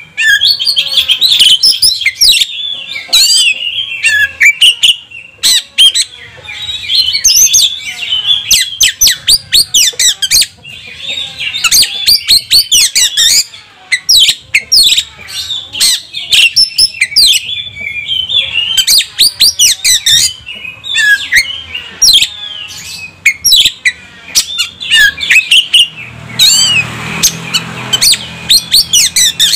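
Oriental magpie-robin singing without pause in quick, varied phrases of loud whistles and sharp rapid notes.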